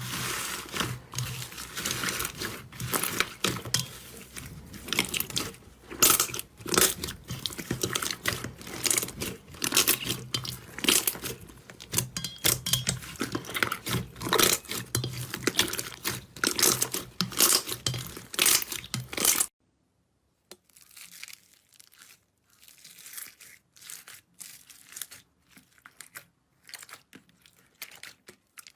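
Slime being squeezed and worked by hand, a dense run of crackles and pops. About twenty seconds in it cuts off suddenly, then goes on as quieter, sparser clicking.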